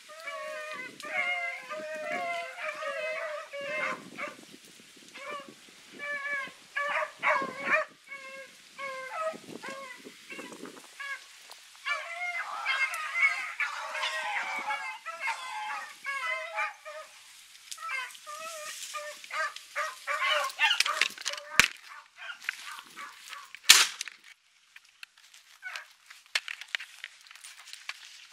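Rabbit dogs baying on the trail of a rabbit, many short pitched cries overlapping in the brush. Near the end a single loud sharp bang: a shot at the rabbit, which missed.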